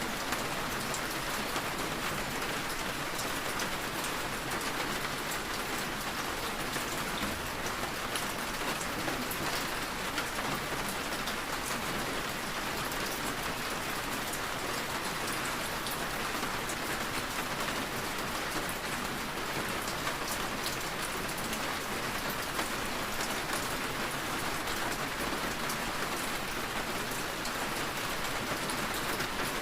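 Steady rain falling: an even hiss of rain with many fine drop ticks, unchanging throughout.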